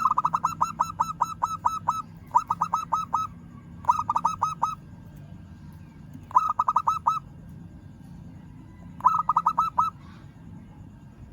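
Local zebra dove (perkutut) singing its challenge call to a rival. It gives five quick runs of rapid, evenly repeated notes; the first and longest lasts nearly two seconds, and the others come a second or two apart.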